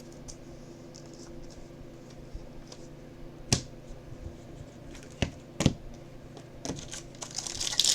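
Trading cards handled by hand, with three sharp snaps of card stock. Near the end a card pack's foil wrapper begins to crinkle as it is opened.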